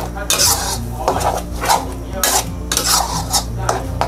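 Metal spatula scraping and stirring thick green curry paste around an aluminium wok while it fries, in repeated strokes about twice a second.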